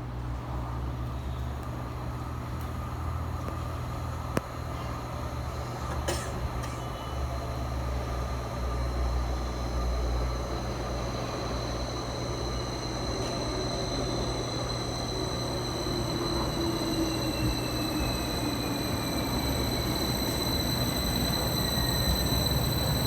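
A train approaching through the station, slowing: a whine from its motors glides down in pitch over the second half, above a steady low rumbling hum. The sound grows gradually louder toward the end.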